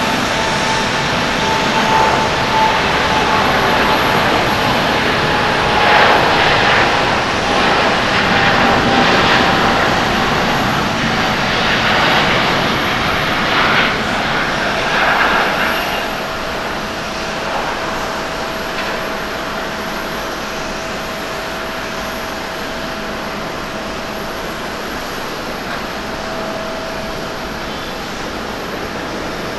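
Airbus A350-900's two Rolls-Royce Trent XWB turbofans at takeoff thrust: jet roar through the takeoff roll and liftoff, with a fan whine that drops in pitch as the aircraft goes past. The roar is loudest around the middle, then settles lower as the airliner climbs away.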